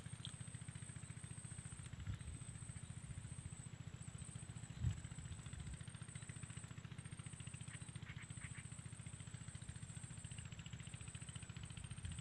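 A faint engine chugging steadily at a rapid, even beat, with one louder thump about five seconds in and a thin, high, steady tone above it.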